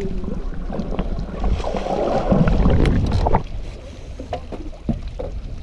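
Water churning and splashing, loudest for a couple of seconds in the middle and stopping abruptly, then wind on the microphone with lighter splashing and a few knocks as a hooked musky thrashes in a landing net at the side of the boat.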